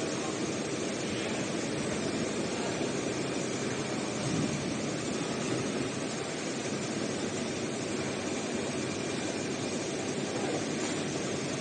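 Richpeace computerized heating-wire sewing machine running: a steady mechanical hum and rush with no clear stitch beat.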